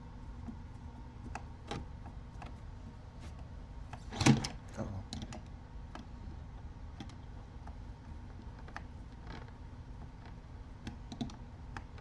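Scattered light clicks and taps of small plastic kit parts and a screwdriver being handled on an RC car chassis, with one louder knock about four seconds in.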